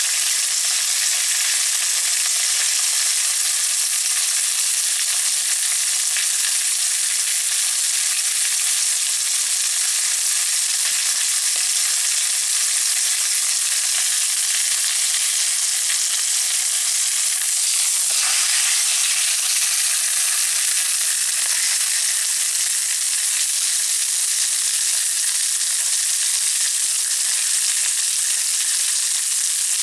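Scored pork belly frying in a pan, its fat sizzling with a steady, even hiss.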